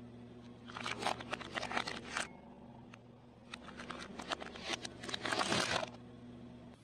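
Hollow plastic toy pig cracking and crunching as a car tyre rolls over it, in two bouts of crackling about a second and a half each, the second louder, over a low steady hum.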